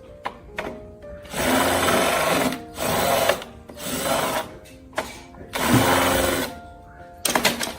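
A small power tool or motor running in four or five short bursts, each under a second, with a few sharp clicks between them, over background music.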